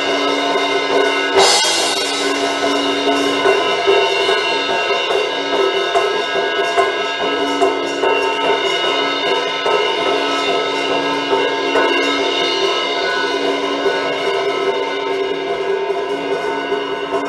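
Instrumental worship music: chords held steady throughout, with a drum kit and cymbals. One cymbal crash rings out about a second and a half in.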